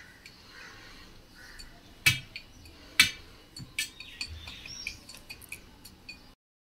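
Small steel bowl pressing a coconut and pistachio topping into sesame-peanut jaggery mixture in a steel plate: two sharp ringing metal clinks about a second apart, then lighter taps and scrapes.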